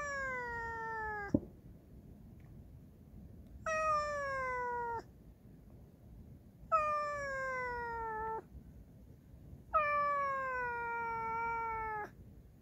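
Calico cat meowing: four long, drawn-out meows a couple of seconds apart, each sliding down in pitch.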